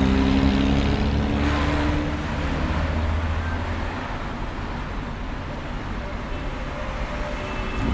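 Busy city street traffic. For the first couple of seconds a vehicle's engine hum rings out low and steady, then fades, leaving a steady rush of passing cars.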